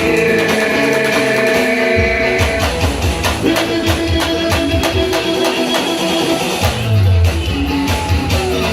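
A band playing live: guitar over bass and drum kit, with a steady beat.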